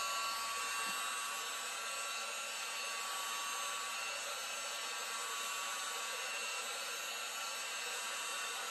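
Steady whirring rush of air from a small electric motor and fan, with faint steady tones over an even hiss.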